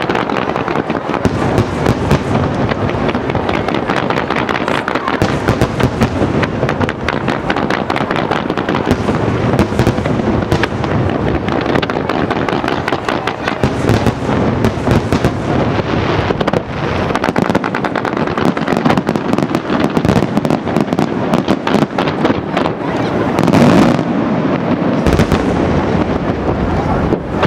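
Fireworks display: a dense, continuous barrage of aerial shell bursts with rapid sharp pops and bangs running together. The bangs come loudest about 23 seconds in.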